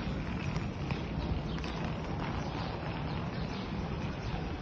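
Footsteps clicking irregularly on a hard floor over a steady hubbub of a busy public space.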